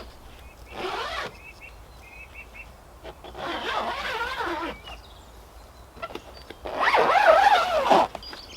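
Plastic sheeting of a polytunnel being handled as the tunnel is covered, rustling in three bursts, the last about seven seconds in and the loudest. A bird chirps briefly between the first two.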